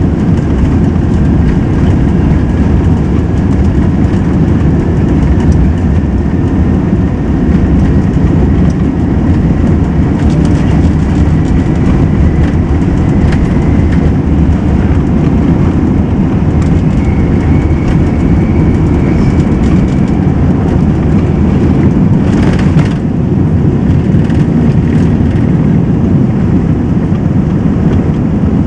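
Cabin noise aboard an Airbus A380 moving on the ground: a loud, steady low rumble from its Engine Alliance GP7270 engines and wheels, with a faint whine slowly rising in pitch over the first half. A brief hiss comes about three quarters of the way through.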